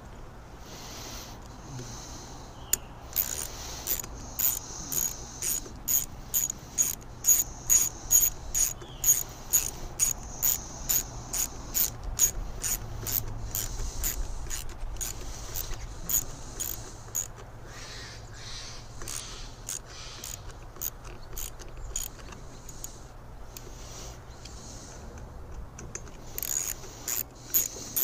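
Sharp, evenly spaced clicking from a small hand tool tightening the screws of a chainsaw's ignition contact points, about two clicks a second, thinning out about halfway through.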